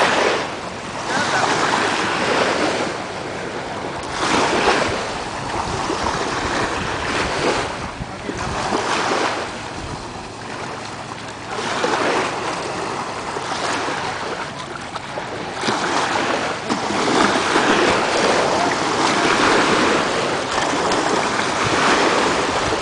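Small waves washing onto a sandy shore in shallow water, the wash rising and falling every few seconds and staying stronger near the end, with wind on the microphone.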